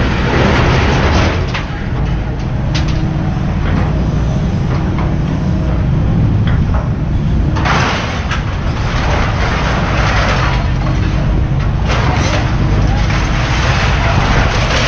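Heavy diesel machinery running with a steady low rumble while a grapple material handler drops scrap metal into a steel trailer, giving clanks and knocks and louder spells of crashing near the start and about eight and eleven seconds in.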